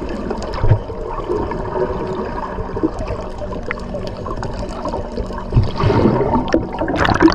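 Seawater sloshing and gurgling, with a steady low hum underneath and a louder splashy stretch near the end.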